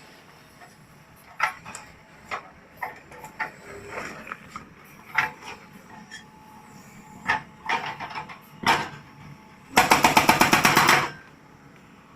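Scattered single knocks, then about ten seconds in a JCB 3CX backhoe loader's hydraulic breaker hammering in a rapid burst of about nine blows a second, lasting just over a second.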